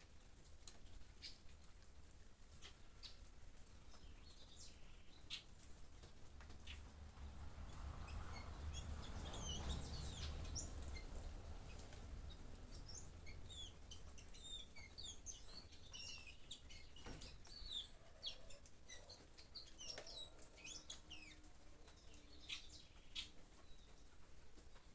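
Small birds chirping and twittering in many quick high calls, busiest in the middle and second half, over light rain with scattered sharp drips. A low rushing swell rises and fades near the middle.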